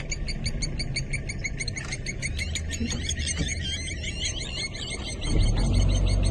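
Outdoor wildlife ambience: birds chirping over a fast, even ticking chorus. A low steady hum gets louder about five seconds in.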